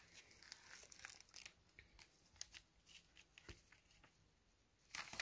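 Near silence with faint, scattered rustling and light ticks, like something being handled, and a louder rustle near the end.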